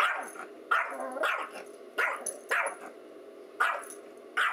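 Small Yorkshire terrier barking at its own reflection in a mirror, taking it for another dog: about seven short, sharp barks at uneven intervals.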